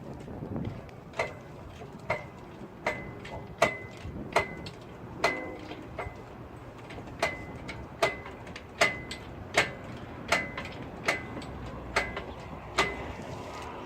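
A steady series of sharp metallic clicks, a little over one a second, each with a brief ring, over a low background of shop noise.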